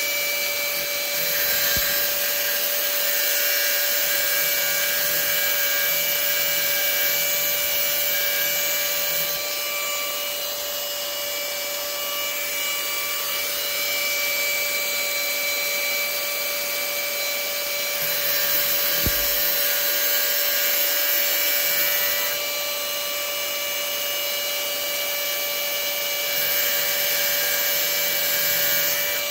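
Power grinder running with a steady high whine while grinding a groove into a steel screw-in arrow field point; the grinding noise swells three times as the steel is pressed to the wheel and eases in between.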